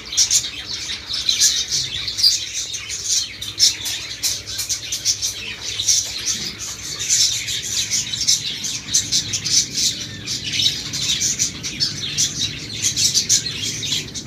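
A flock of caged budgerigars chattering: a constant stream of many short overlapping chirps and warbles.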